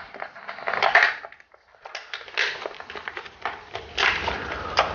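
Crinkling and small clicks as hands handle the pieces of a PAAS tie-dye egg kit, with a short quiet gap about a second and a half in and denser crinkling near the end.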